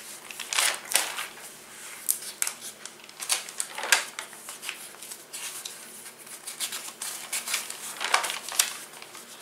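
Glossy magazine pages being handled and turned, paper rustling and flapping in short irregular strokes, with a sharper page flick about four seconds in and a run of rustles near the end.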